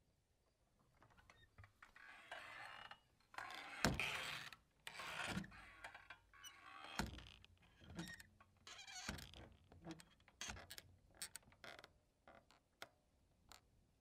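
Saloon-style swinging doors swinging back and forth, their hinges rubbing and creaking between knocks. The loudest knocks come in the middle, about four of them a second or two apart, then the swings die down to small taps near the end.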